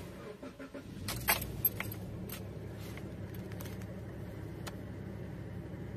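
Suzuki SX4's M16A four-cylinder engine being started from the driver's seat: the ignition keys jangle and a short crank about a second in, then the engine settles into a steady idle. A few light clicks of the swinging keys follow.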